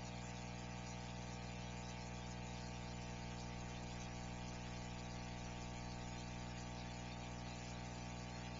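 Steady electrical hum with a buzz and hiss, unchanging throughout; no eruption sound can be heard.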